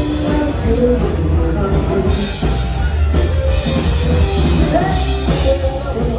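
Music with a singing voice over a steady drum and bass beat.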